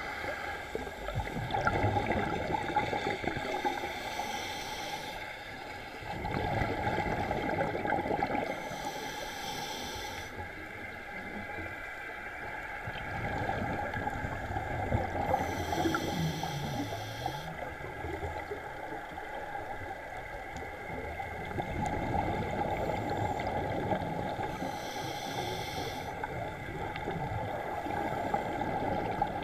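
Scuba regulator breathing heard underwater: a hiss on each inhale every several seconds, with bubbly gurgling of exhaled air between breaths.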